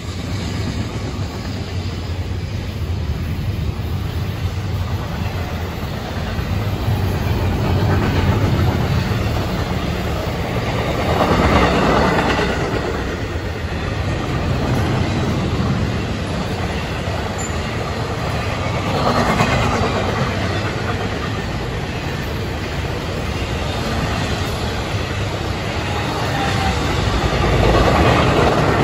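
A Florida East Coast Railway intermodal freight train's cars, loaded with double-stack containers and trailers, roll past on the rails close by. They make a steady rumble that swells louder three times, about eight seconds apart.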